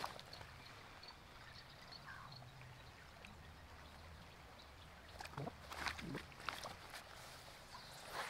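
A shallow stream running faintly, with a few soft splashes and swishes a little past halfway as an angler wades and casts a fly line.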